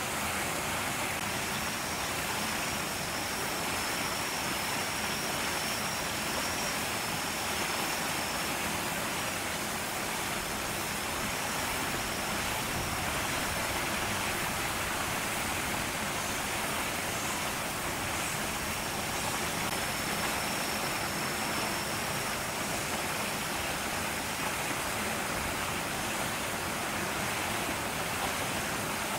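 Steady, even rushing noise with no distinct events, and a faint thin high tone that comes and goes.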